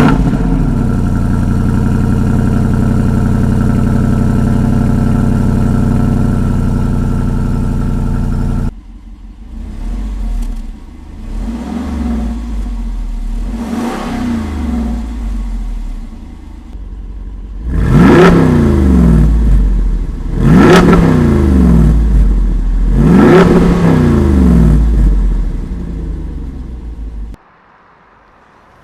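Jeep Wrangler Rubicon 392's 6.4-litre Hemi V8 exhaust, recorded at the tailpipe. It fires up loud and holds a steady high idle, and the clip cuts off about nine seconds in. Then come a few light throttle blips and three hard revs about two and a half seconds apart, each falling back to idle, before it cuts off near the end.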